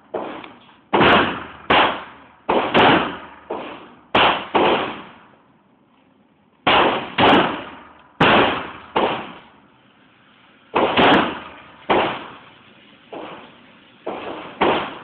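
Glock pistol fired repeatedly, about sixteen shots in quick strings of two to four with short pauses between them. Each shot is a sharp crack with an echo that dies away over about half a second in the indoor range.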